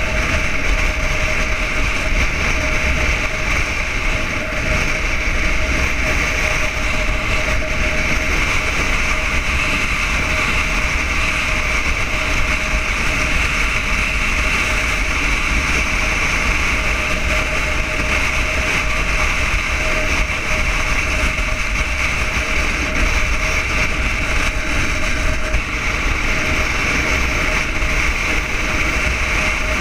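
Yamaha XTZ 600 Ténéré motorcycle's single-cylinder engine running steadily at cruising speed, with steady wind rush over the helmet-mounted camera.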